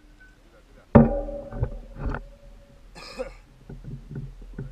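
Wordless vocal sounds from a mountain biker: a loud, sudden shout-like cry about a second in, then a short, breathy, cough-like burst around three seconds. Light ticking follows.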